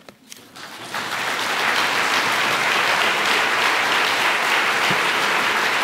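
Audience applauding: the clapping starts about half a second in, swells over the next second, then holds steady and full.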